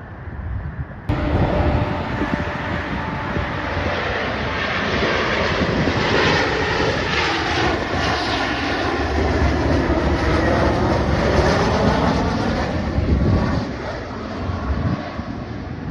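Fixed-wing airplane engines passing close by, a loud, steady engine noise whose pitch lines bend downward as the aircraft goes past. It starts abruptly about a second in.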